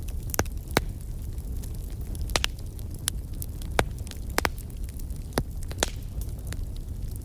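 Wood fire crackling, with sharp irregular pops, a few louder than the rest, over a steady low rumble.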